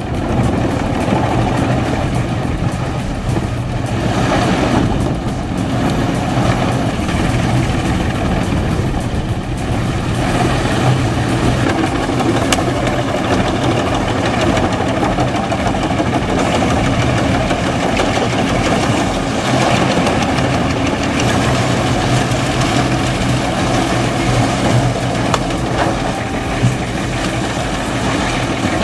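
Large wood chipper running steadily, with a deep, continuous engine drone.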